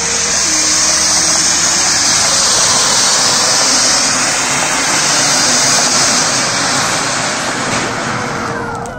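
Large anar (flowerpot fountain firework) burning under an upturned steel lota, a loud steady rushing hiss as it sprays sparks. Near the end the hiss falls away and music comes in.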